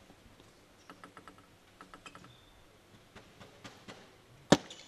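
Light, scattered clicks and taps of a table tennis ball being handled and bounced between points, then one sharp, loud click of the ball about four and a half seconds in.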